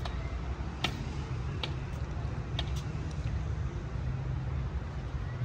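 Steady low outdoor rumble, with a few light, sharp taps about a second apart.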